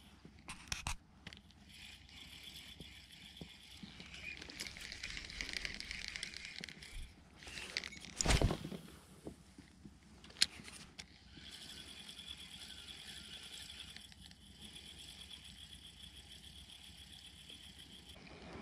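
Spinning reel being cranked on a lure retrieve, giving a faint whirring in stretches, with a few light clicks and one louder thump about eight seconds in.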